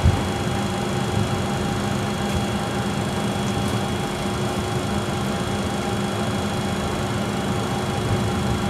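Steady cabin drone of a Bombardier Challenger business jet heard from inside the cockpit while it taxis, with a constant thin high whine over the engine and fan noise.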